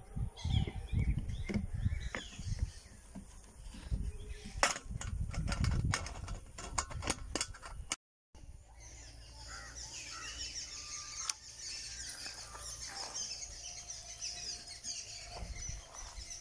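Knocks and sharp clicks from handling the tiller by hand during the first half, with the engine not running. After a short break, steady outdoor ambience follows, with high chirping of birds.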